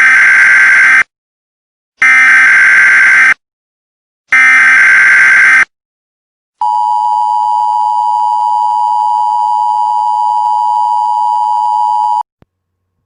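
Emergency Alert System opening tones: three harsh digital SAME header bursts, each about a second long with a second's pause between, then the steady two-tone attention signal for about five and a half seconds, cutting off abruptly. Together they signal the start of an emergency alert, here a weather advisory.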